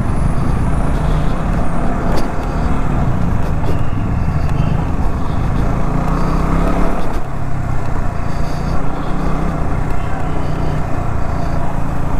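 KTM 200 Duke's single-cylinder engine running as the motorcycle is ridden along at low speed, heard from the rider's position, with a brief dip in level about seven seconds in.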